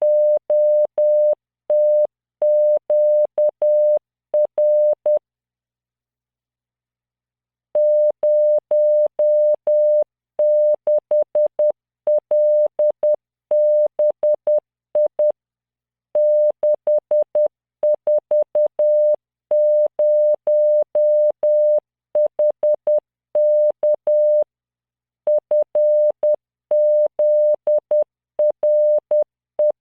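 Computer-generated Morse code at 10 words per minute: a steady 600 Hz tone keyed into dots and dashes, sending random five-character practice groups of letters, numbers and punctuation. A pause of about two and a half seconds comes about five seconds in.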